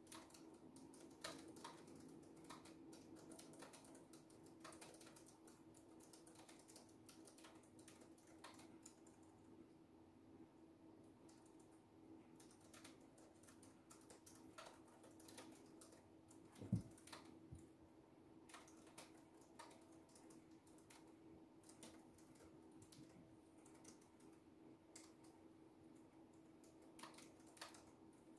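Quiet typing on a laptop keyboard: soft, irregular runs of key clicks, over a faint steady hum. About two-thirds of the way through comes a single low thump, the loudest sound.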